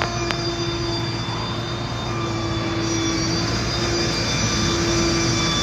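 Steady machine drone with several level whining tones that hold unchanged throughout.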